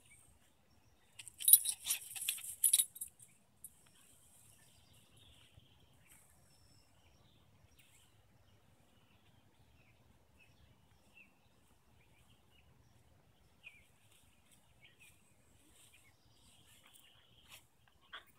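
A burst of metallic jingling starts about a second in and lasts about two seconds, the loudest thing heard. Faint bird chirps follow over a quiet outdoor background.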